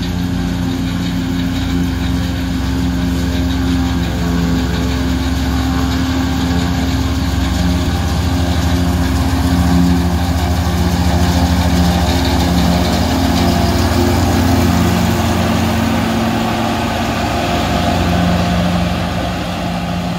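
New Holland 1900 self-propelled forage harvester chopping hay, its 250 hp diesel engine and cutterhead running under load with the accompanying truck's engine, a steady heavy drone. It grows louder in the middle as the machines draw near and eases a little near the end.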